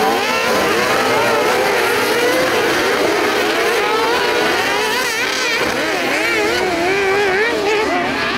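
A pack of kart cross buggies racing on a dirt track, several motorcycle engines revving at once, their pitches rising and falling over one another as the drivers accelerate and lift.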